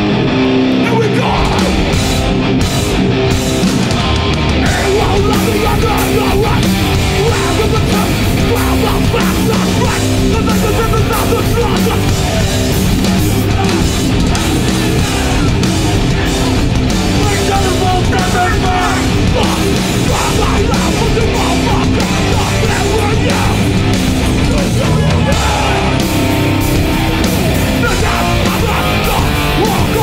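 A metallic hardcore band playing live: loud, distorted electric guitars with bass and drums, dense and unbroken throughout.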